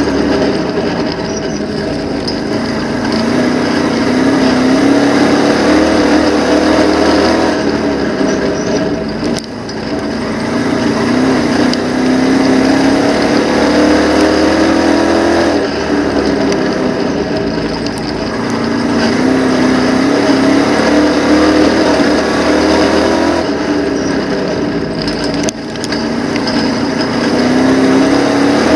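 Dirt late model race car's V8 engine heard from inside the cockpit at full racing speed, its pitch climbing steadily and then falling back about every eight seconds as the car accelerates down each straight and lifts for the turns.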